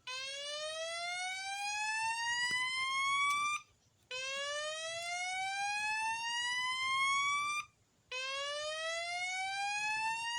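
Fire-Lite voice evacuation alarm sounding its slow whoop tone through a System Sensor SpectrAlert Advance speaker: a pitch that rises steadily for about three and a half seconds, breaks off and starts again, three times. It is the fire evacuation signal that comes before the spoken "May I have your attention, please" message.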